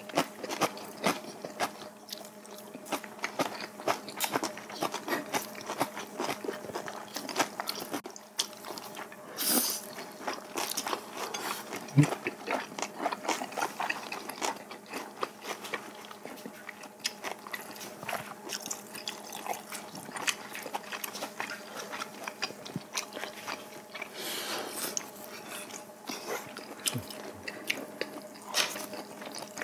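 Two people eating close to clip-on microphones: chewing, biting and crunching with many small wet clicks and smacks, and a few hissing slurps of noodles. A faint steady hum runs underneath.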